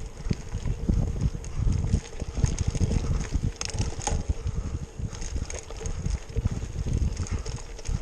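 Wind buffeting the microphone in an uneven low rumble, with faint scattered ticks and rattles, heard while moving outdoors.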